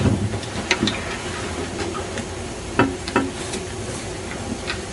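Room noise: a steady hiss with a few scattered soft clicks and knocks.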